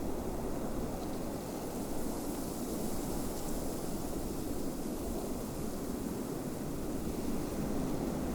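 Snowstorm wind blowing steadily: a low, even rushing noise with a light hiss above it.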